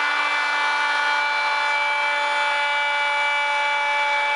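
Table-mounted wood router running with a steady high whine as its bearing-guided pattern bit trims a wooden leg flush to a template.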